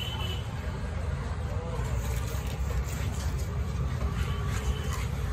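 Busy fish-market background: a steady low rumble with distant voices. A few faint ticks come from a knife working through tuna on a wooden chopping block.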